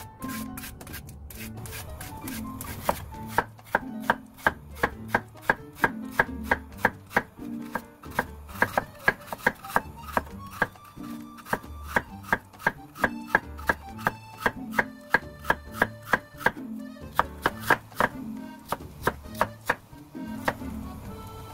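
Kitchen knife slicing a raw lotus root into thin rounds on a wooden cutting board: a steady run of crisp cutting strokes, roughly two to three a second, starting a few seconds in and stopping near the end.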